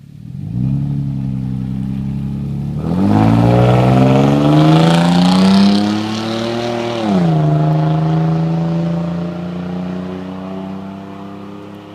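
Toyota Tacoma's 4.0 V6 with a Y-pipe into dual exhausts, no mufflers and factory cats, pulling away and accelerating. The engine note climbs from about three seconds in, drops with an upshift around seven seconds, then holds steady and fades as the truck drives off.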